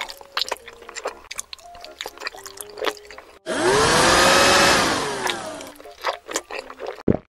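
Eating sound effects for soft steamed buns: quick, moist chewing and munching clicks for about three seconds, then a loud rushing noise with a bending pitch for about two seconds, then more chewing and a short low thump near the end.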